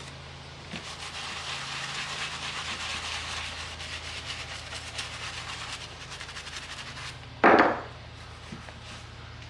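Hands rubbing and scrubbing on the leather of a ball glove, a steady scratchy sound. About seven and a half seconds in there is one short loud thump.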